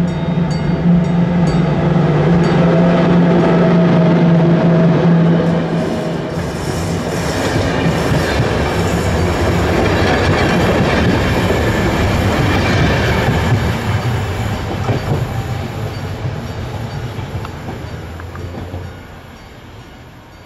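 An HŽ class 1141 electric locomotive passes with a steady low hum, followed by its passenger coaches rumbling and clattering by on the rails. The noise fades as the last coach moves away, dropping off sharply near the end.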